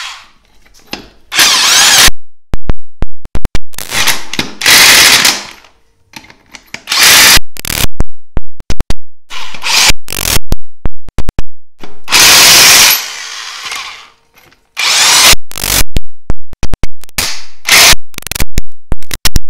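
Corded electric impact wrench spinning on and hammering tight the lug nuts of a tractor wheel, in repeated bursts of a second or two with short pauses between them.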